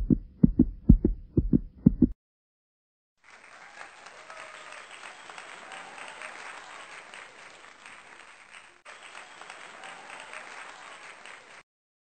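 A deep thumping sound effect, about seven heavy thuds in two seconds. After a short silence comes a steady, faint rushing noise with a brief dropout, ending before the last second.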